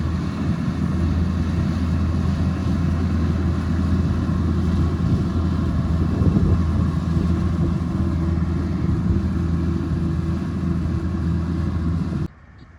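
Rice combine harvester's engine running steadily under load, a constant low drone. It cuts off abruptly about half a second before the end, leaving a much quieter background.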